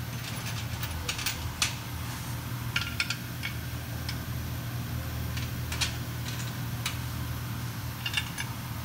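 Light metallic clinks and taps, a few at a time, come in scattered clusters over a steady low hum of shop ventilation.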